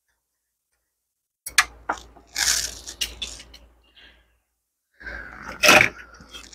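Clicks, knocks and scraping rustles of a printer's controller circuit board and its sheet-metal mounting being handled and worked loose from its slot. The loudest click comes just before the end.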